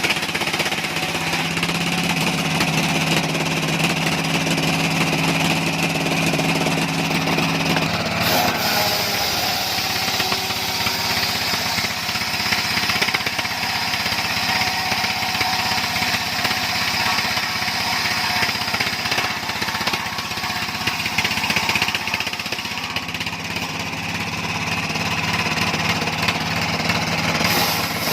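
Engine-driven sawmill saw running steadily. About eight seconds in its low steady hum drops away and a higher, hissing note takes over; the hum comes back near the end.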